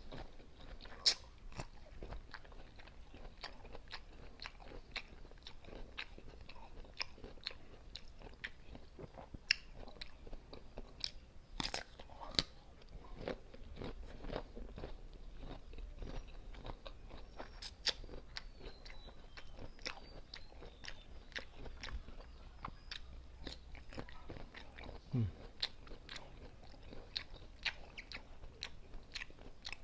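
Close-miked crunching and chewing of raw green mango, with sharp crisp bites scattered among steady chewing.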